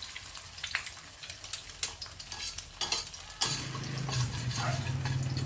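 A sunny side up egg frying in hot oil in a pan, sizzling with many sharp crackles and pops. A low steady hum joins about three and a half seconds in.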